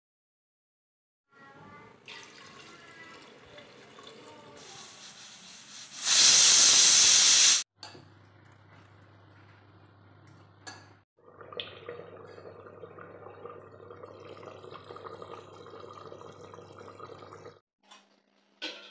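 A pressure cooker venting steam in a loud hiss for about a second and a half, about six seconds in, cutting off abruptly. Around it are quieter sounds of liquid and handling in the pot.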